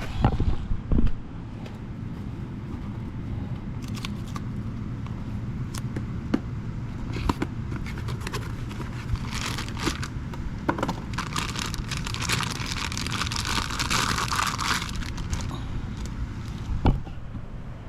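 Metal car parts being handled: a few sharp knocks near the start and again near the end, scattered clicks, and a stretch of scraping in the middle, over a steady low rumble.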